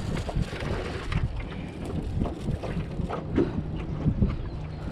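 Wind buffeting the microphone as a low rumble, with a few light knocks and clicks as an umbrella rig is handled in a boat.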